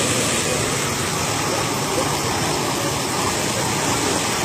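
A tall jet of water shooting up out of the ground and pouring back down onto the earth: steady rushing and splashing water.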